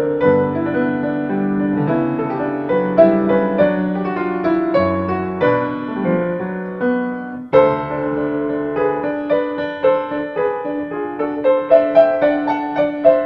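Solo piano music playing as a backing track, with a string of notes and a fresh loud chord about seven and a half seconds in.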